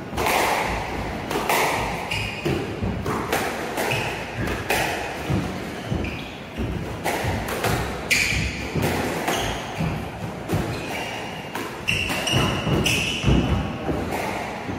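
Squash rally: the ball is struck by rackets and thuds against the walls and floor in quick succession, about once or twice a second. Short squeaks from players' shoes on the hardwood floor come in between.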